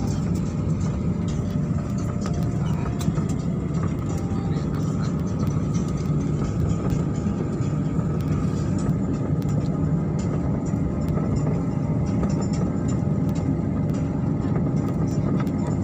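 Steady low rumble heard inside a moving vehicle's cabin, with faint music in the background.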